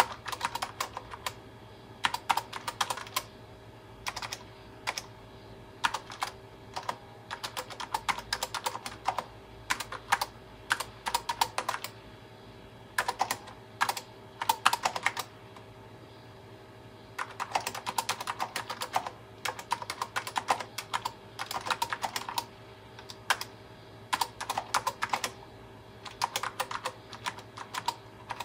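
Typing on the Tandy TRS-80 Model 102's built-in full-travel keyboard: quick runs of key clicks lasting a second or three, broken by short pauses, over a faint steady hum.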